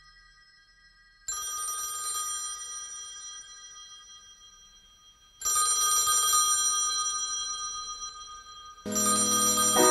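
A bell-like ringing tone, struck twice: each strike starts suddenly and rings on, fading over about four seconds. Near the end, music with lower notes comes in.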